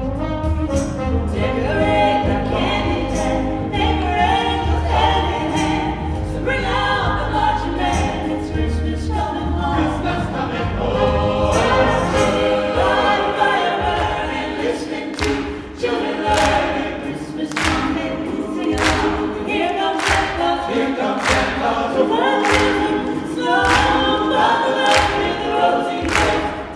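A mixed choir of men and women singing together, amplified through handheld microphones, with two women soloists out front. About halfway through, a beat of sharp, evenly spaced hits joins the singing.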